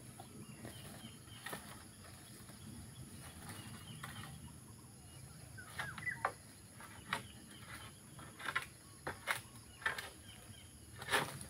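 Scattered clicks and scraping of a long-pole sickle working at oil palm fronds, the strokes coming closer together near the end, with a few faint bird chirps about halfway through.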